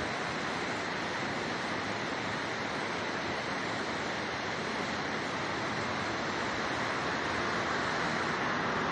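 Steady rushing noise, slowly growing louder near the end.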